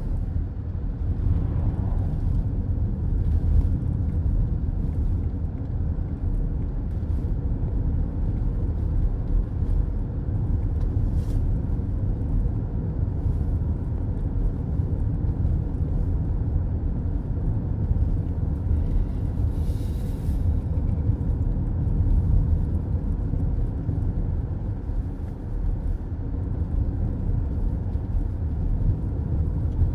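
Steady low rumble of road and engine noise heard inside a car cruising on a highway, with a brief hiss about twenty seconds in.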